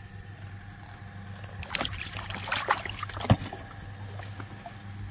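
Live fish splashing and thrashing in the water of a fishing cooler for a second or two, ending in one sharp knock, the cooler lid being shut.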